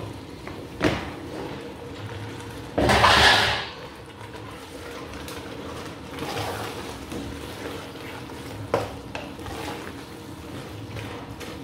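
Chopped spinach dropped into a steel pot of frying tomato and pepper base, with a loud burst of sizzling hiss about three seconds in. A wooden spoon then stirs the greens into the frying stew, knocking now and then against the pot.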